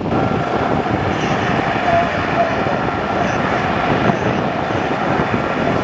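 Helicopter hovering low: steady rotor and turbine noise with a thin, high, steady whine on top.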